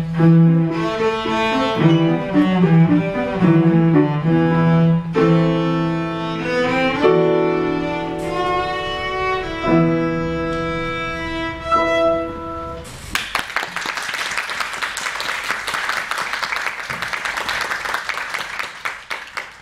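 Cello with grand piano accompaniment playing the closing bars of a piece, the last notes held longer and the music stopping about thirteen seconds in; then an audience applauds.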